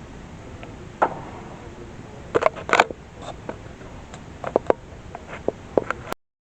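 Steady hiss with scattered sharp clicks and knocks, some in quick clusters, that cuts off abruptly to dead silence about six seconds in.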